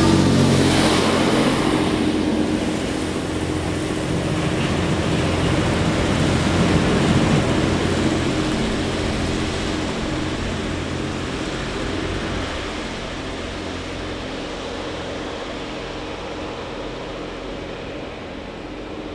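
Diesel engines of a DB class 614 multiple unit running at full power as the train accelerates away, a steady drone that fades gradually as it moves off into a tunnel.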